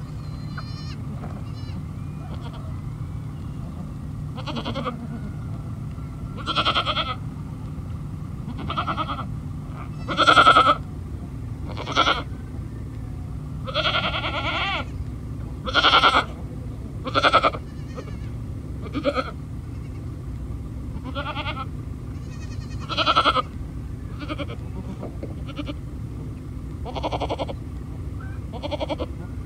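Goats bleating: about a dozen short calls, each under a second, coming a second or two apart, some much louder than others, over a steady low rumble.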